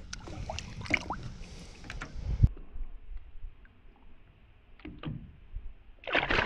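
Lake water splashing and dripping around a hand as a largemouth bass is released over the side of a boat, with a few knocks early on. About six seconds in comes a loud splash as the fish kicks away.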